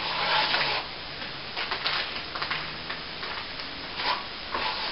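Steel plastering trowel scraping and swishing over a wet finish coat of plaster on a ceiling in short strokes, polishing the set coat smooth after it has been wetted with water.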